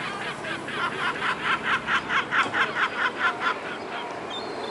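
A kelp gull calling a rapid run of short repeated notes, about five a second, which swell and then fade.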